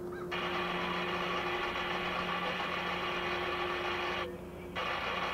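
Kansas City Southern diesel locomotive's air horn sounding one long blast, then a short one near the end, over the steady running of its engine.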